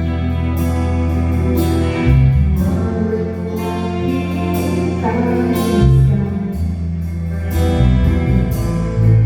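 Live worship band playing a gospel song: bass guitar holding long low notes under strummed guitar chords, with a singing voice over them.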